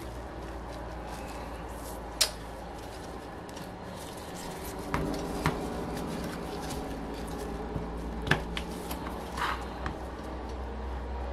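Scattered light metallic clicks and clinks as a cylinder is worked loose and pulled off the crankcase of a small OS FF-240 Pegasus model glow engine by hand. The sharpest clicks come about two seconds in and about eight seconds in, over a steady low hum.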